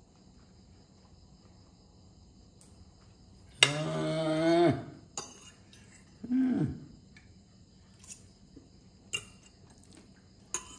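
Light clicks and taps of a fork against a styrofoam takeaway box and plate. Near the middle comes a loud pitched sound held at one pitch for about a second, then a shorter one falling in pitch.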